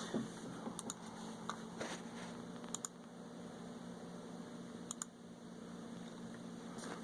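A few scattered, sharp clicks, like keys on a computer keyboard, over a steady low hum.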